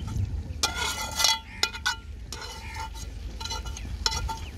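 Metal slotted spoon clinking and scraping against a large aluminium cooking pot and its lid as fried chicken pieces are tipped in: a run of sharp metallic clinks, each with a brief ring.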